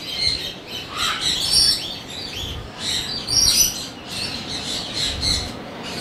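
A crowded aviary of parrots chirping and squawking, many short high calls from several birds overlapping without a break.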